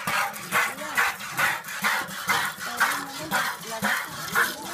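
Hand milking: jets of milk squirting into a pail with a rasping hiss, about two strokes a second.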